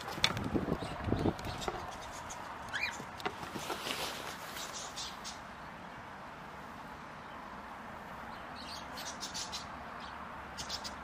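Goats pressing their heads and muzzles against the camera, making thumps and rubbing on the microphone in the first second or so. Scattered bird chirps and short high clicks follow.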